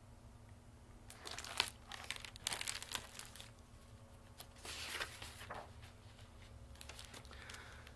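Paper pages of a picture book rustling and crinkling as it is handled and turned, in two short spells with a fainter rustle near the end.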